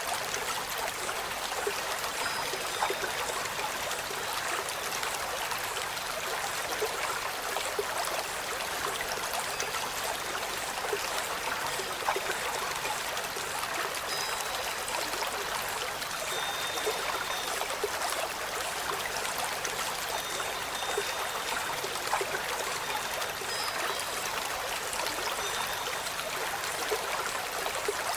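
Steady running water like a stream or trickle, with a few faint, short high notes scattered through it.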